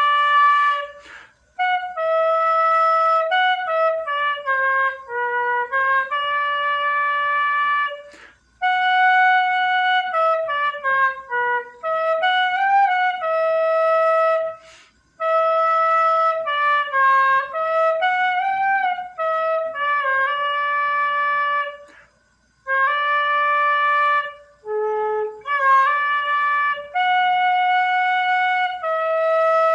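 Homemade gaita, a sertão cane-style flute built from scrap and tuned to A major, playing a simple melody in short phrases separated by brief breath pauses.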